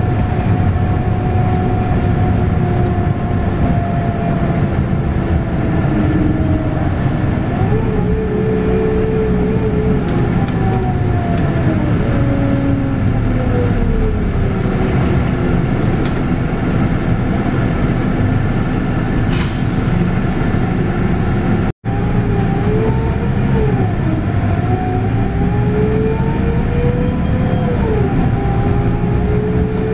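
Scania K280UB bus with a ZF Ecomat 6-speed automatic and a 9.3-litre five-cylinder diesel, heard from on board under way. A pitched drivetrain whine sinks slowly as the bus slows, then climbs and falls again several times as it pulls away and eases off. The sound cuts out for an instant about two-thirds of the way in.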